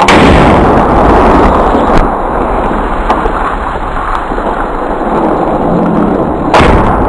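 A 40-year-old RPG launcher firing: a sudden, very loud blast, then a long rumbling roar that lasts several seconds. A sharp crack comes about two seconds in, and a second loud blast about six and a half seconds in.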